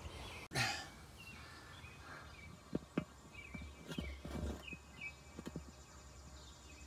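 Faint outdoor background with a few distant bird chirps and some soft, scattered clicks; a brief burst of noise about half a second in.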